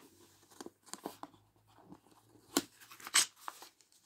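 Fingers handling a plastic DVD case, giving scattered light clicks and scrapes of plastic, with two sharper clicks in the second half.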